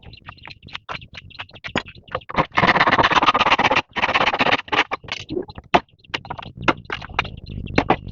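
Irregular run of sharp knocks and clatter, with two longer scraping bursts around the middle, like hand work with tools or materials. A faint steady high tone runs underneath.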